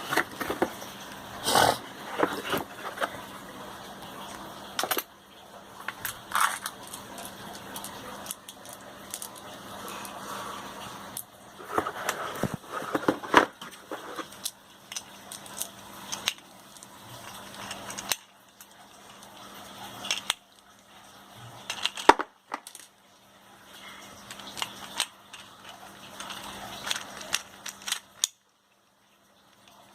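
Handling noise from full-metal gas-blowback airsoft guns: scattered sharp clicks, snaps and knocks, some in quick clusters, over a faint steady hum.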